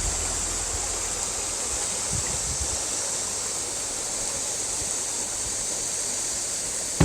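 Steady rushing of river water flowing over shallow rapids.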